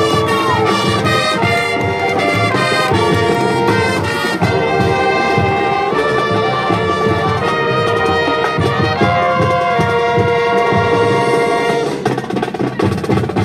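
High school marching band playing: brass sustaining full chords over drums and percussion, with a steady beat.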